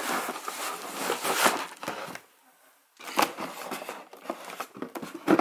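Cardboard packaging rustling and scraping as a boxed diesel heater is shifted and lifted inside its box, in two spells with a short pause between, and a louder bump near the end.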